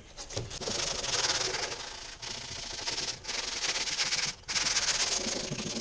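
80-grit sandpaper scraping by hand over fiberglass body filler in long strokes of about a second each, with brief pauses between them. The filler is not fully hard and is still a little sticky, so it is balling up in the sandpaper.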